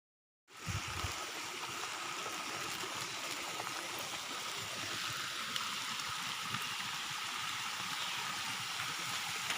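Steady hiss of falling rain that cuts in after half a second of dead silence, with a soft low thump just after it starts.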